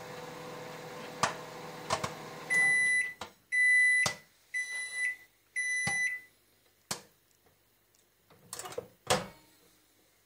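LG microwave oven running with a steady hum, with a couple of sharp pops from the last popcorn kernels, until the cycle ends and it beeps four times. Then a few clicks and a louder clack near the end as the door latch is opened.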